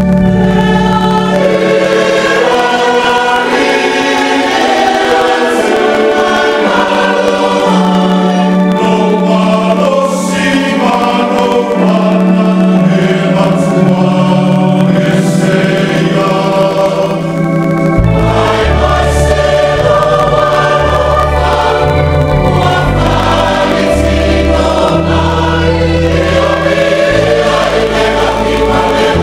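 Church congregation singing a Samoan hymn together: a large mixed group of voices holding long notes. Deep bass notes join about two-thirds of the way through.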